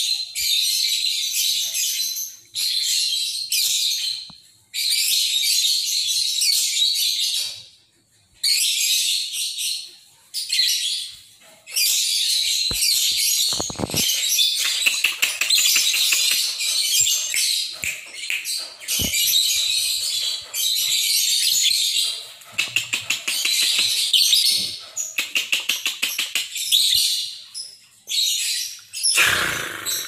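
Caged lovebird singing in long, high-pitched, rapid chattering phrases of several seconds each, broken by short pauses. In the second half the song runs on longer and turns into a fast, clipped trill.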